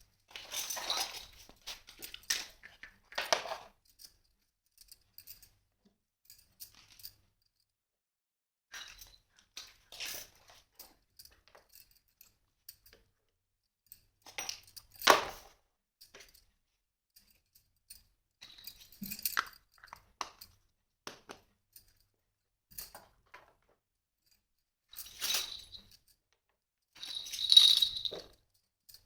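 Small plastic toy kitchen pieces and their packaging being handled and set down: scattered clicks, rustles and light clinks with quiet gaps between, and a louder knock about halfway through and another near the end.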